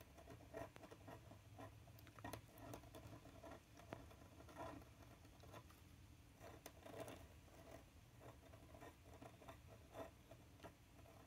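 Fountain pen nib scratching faintly over a textured paper card, in many short strokes of handwriting with small ticks where the nib lifts and lands.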